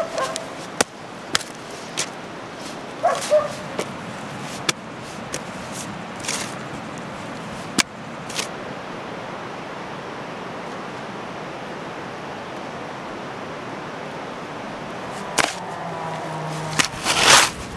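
A hoe striking and scraping into garden soil while digging up potatoes: irregular sharp knocks and scrapes, sparse in the middle, with a louder cluster near the end.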